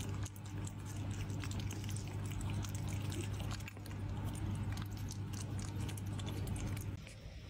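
A puppy chewing and biting at soft noodles, a run of small wet clicks, over a steady low hum that stops near the end.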